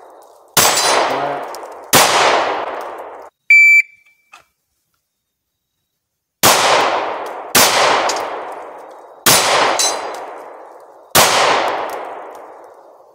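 Handgun shots fired one at a time at steel plate targets, each with a long ringing tail. Two shots come early, then an electronic shot-timer beep about three and a half seconds in, followed by two seconds of dead silence. A slow string of six more shots follows, one to two seconds apart.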